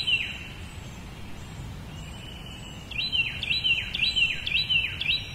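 A songbird singing: a long steady whistled note, then a run of five quick down-slurred whistles, over a steady low outdoor rumble.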